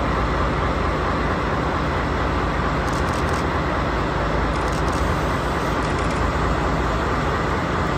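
JNR DD51 diesel-hydraulic locomotive's engines running steadily, a constant low rumble with no change in pitch.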